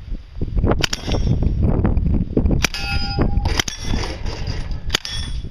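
Full-size 9mm Uzi submachine gun firing at steel targets. Sharp shots, with steel plates clanging and ringing when hit; one plate rings out for about half a second near the middle.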